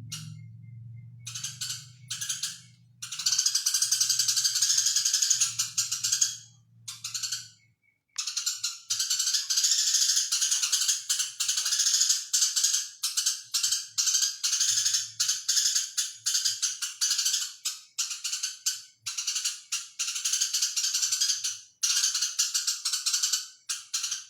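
Eurasian tree sparrow chirping fast and continuously in dense, rattling runs of high chirps, with a few brief pauses in the first eight seconds.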